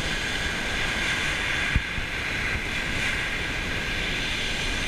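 Small waves breaking and washing up a shingle beach, a steady hiss of surf, with one brief low knock about two seconds in.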